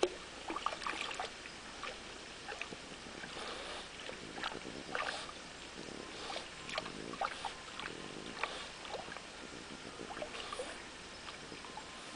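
French bulldog wading in a shallow stream, splashing and sloshing with her paws and muzzle as she pokes at the water for small fish: irregular little splashes over the stream's steady trickle.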